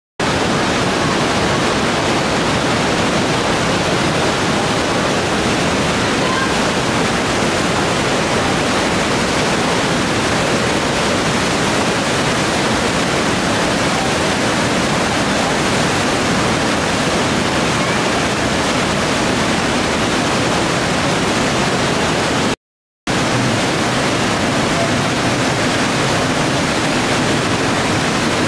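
Trümmelbach Falls, a glacier-fed waterfall pounding through a narrow rock gorge: a loud, steady rush of falling water. A split-second gap of silence breaks it about four fifths of the way through.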